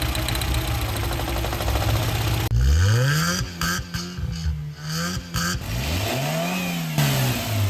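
Tata Indica petrol engine running rough and unevenly, then revved up and down several times after a sudden change about two and a half seconds in. The engine is misfiring from a failing ignition coil.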